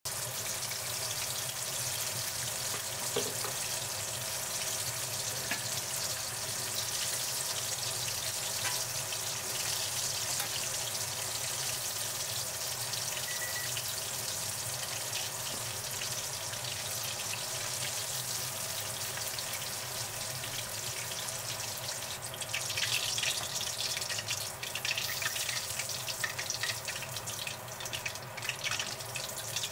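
Starch-coated salmon pieces deep-frying in a wok of hot oil: a steady sizzling hiss with fine crackling, which turns louder and more crackly about two-thirds of the way through.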